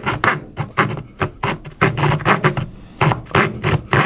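A thin blade scoring a wooden trim strip, worked back and forth in short scraping strokes about three a second.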